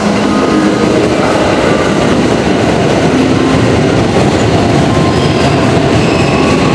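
JR West 521 series electric train running into the platform, a steady loud rumble of wheels on rail.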